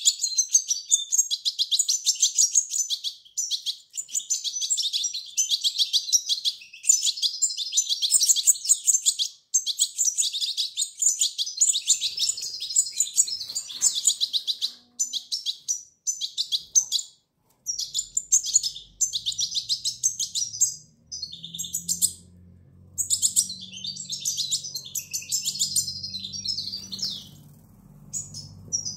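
Juvenile goldfinch chick giving rapid, high-pitched begging chirps as it is hand-fed from a syringe, in dense runs broken by short pauses. A low hum comes in about two-thirds of the way through.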